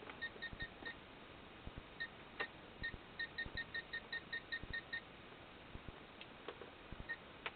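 Short high electronic beeps from an FPV video receiver as its button is pressed to step through channels, hunting for the micro drone camera's transmitting frequency. A few single beeps, then a quick run at about five a second, with faint button clicks.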